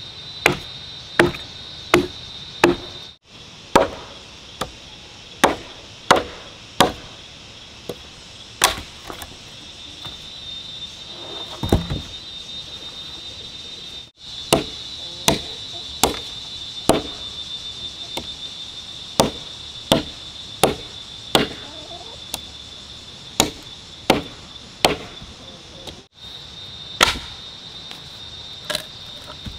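Repeated chopping strikes, irregularly spaced about one a second, over a steady high-pitched drone.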